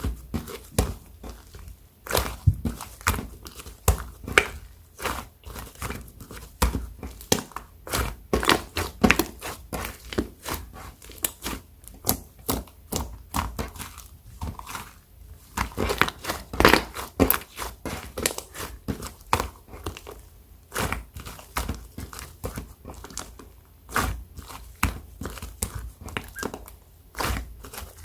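Foam ball slime being squeezed and kneaded by hand: a dense, irregular run of crackling, clicking pops from the foam beads.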